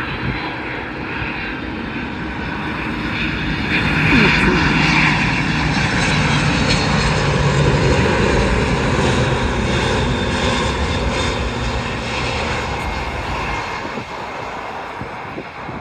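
Airbus jet airliner passing close on its landing approach: jet engine noise that swells to its loudest about four seconds in, holds, then fades toward the end.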